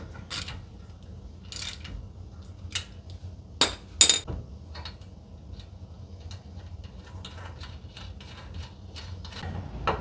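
Hand tools and steel suspension parts clinking during front-end reassembly, with two sharp metal knocks about three and a half and four seconds in. Near the end comes a run of light metallic ticking as a wrench is worked on the upper ball joint nut.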